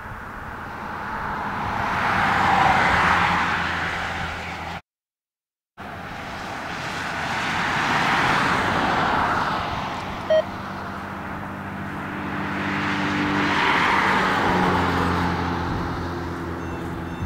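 Road traffic passing on a highway: three swells of tyre and engine noise, each building and fading over several seconds. A short beep sounds about ten seconds in, and the sound cuts out completely for about a second near the five-second mark.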